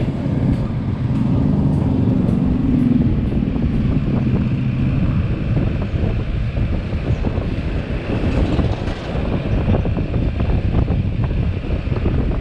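Yamaha XMAX 300 scooter riding along: steady engine and road rumble with a faint steady whine, and wind buffeting the microphone.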